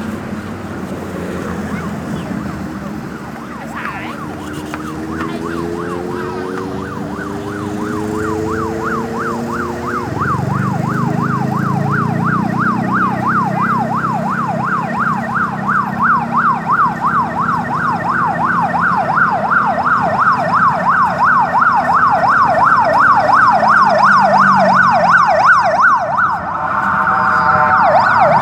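Ambulance siren in fast yelp, sweeping up and down about three times a second and growing louder as the vehicle comes closer, with its engine running underneath. Near the end the siren switches to a different tone pattern.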